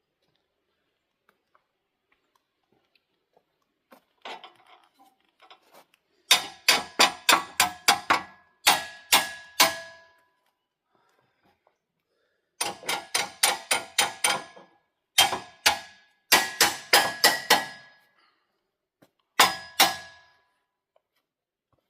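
Hammer blows on metal, struck in quick runs of several blows, about four or five a second, each with a short metallic ring, with brief pauses between runs; a few faint clicks come first.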